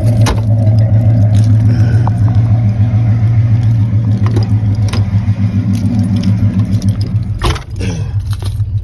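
Kicker Solo-Baric L5 10-inch subwoofer in a custom enclosure playing loud, deep bass that pulses in level. Scattered clicks and a louder knock about seven and a half seconds in.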